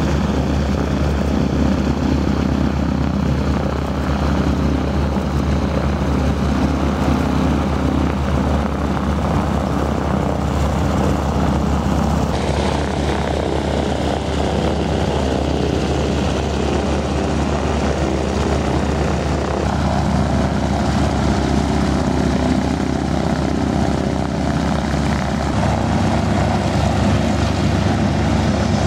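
Hawker Hurricane's Rolls-Royce Merlin V12 piston engine and propeller running steadily as the fighter lands and rolls out, then taxis. The sound changes abruptly about twelve seconds in.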